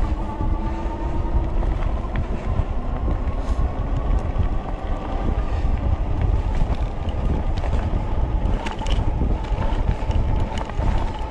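Wind buffeting the microphone and fat tyres rumbling over asphalt and gravel while riding a DYU FF500 fat-tire electric bike, with a faint steady whine underneath.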